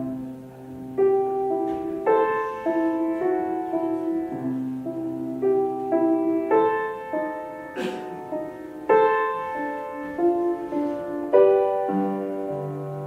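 Solo acoustic piano playing a slow, melodic piece: single notes and chords ring out over lower held bass notes. There is one brief click about eight seconds in.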